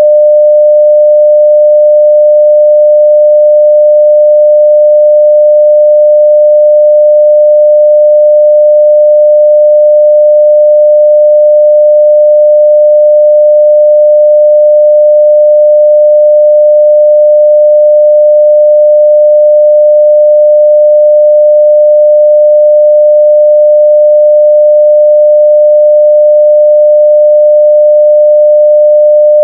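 Steady 600 Hz sine-wave test tone at full scale (0 dB), one unchanging pitch.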